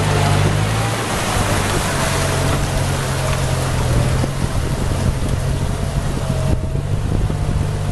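Tractor engine running steadily as it tows a loaded log trailer through deep mud, with the tyres churning and sloshing through muddy water.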